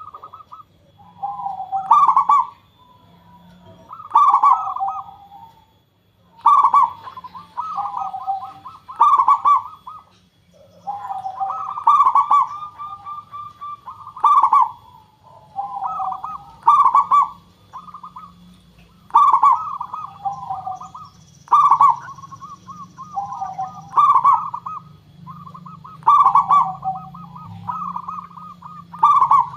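Zebra dove (perkutut) cooing: its song phrase of quick, rolling coo notes repeats about every two to two and a half seconds.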